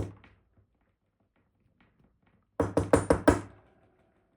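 A quick burst of about five sharp knocks, a little over two and a half seconds in: a lock part of a dimple lock being tapped against a hard surface to shake loose a stuck pin during disassembly.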